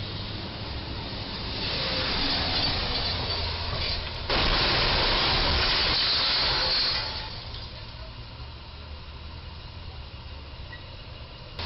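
Box truck running in under a low railway trestle, its noise building. About four seconds in comes a sudden loud hissing scrape as the truck's box top strikes and grinds along the steel crash beam. This lasts about three seconds, then falls back to quieter road noise.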